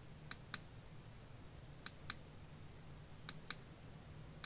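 Faint clicks of the push button on a 180-lumen Olight Magicshine rear bicycle light: three press-and-release double clicks about a second and a half apart, stepping the light through its modes and intensities.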